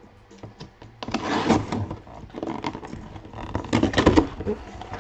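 A cardboard shipping box being cut and torn open with a pocket knife: the flaps are ripped open in two rough spells of tearing and rustling, about a second in and again near the end.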